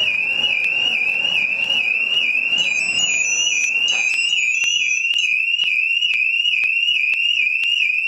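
Scorpio SR-i900 motorcycle alarm siren going off: one high tone in quick repeated rising sweeps, about two and a half a second, with a few higher beeps mixed in around the middle. It has been triggered by starting the armed bike, and it stops right at the end.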